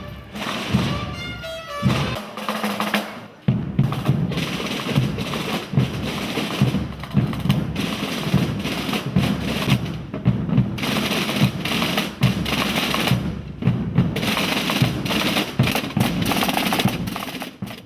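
Procession band drums playing a march: rapid snare drum rolls over regular drum beats.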